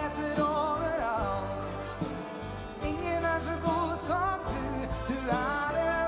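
Live big band playing, with horns, guitar, keys and drums, and a male singer's voice over it in wavering, sliding notes.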